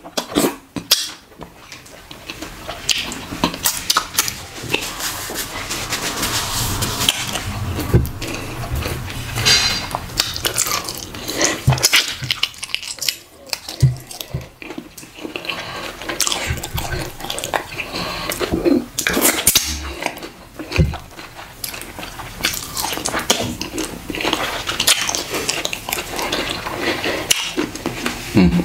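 Close-up sounds of a person eating fish by hand: chewing, lip smacks and wet mouth clicks at an irregular pace, with fingers being sucked clean.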